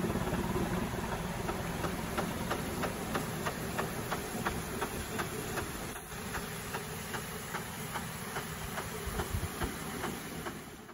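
Steam rotary snow plough R12 at work, its steam exhaust beating about three times a second over a steady rush of steam and thrown snow.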